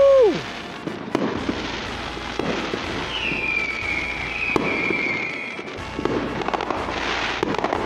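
Fireworks display: repeated bangs and crackling pops. A long whistle slides down in pitch in the middle, and a brief loud tone rises and falls right at the start.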